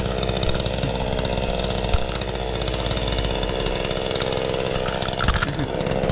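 Gas chainsaw running at high revs while cutting into a tree trunk during felling. Near the end the engine note drops as it comes off full throttle.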